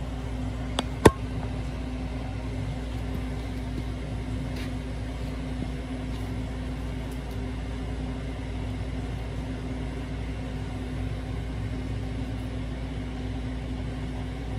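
Steady mechanical hum from running shop equipment, with a sharp click about a second in, just after a fainter one.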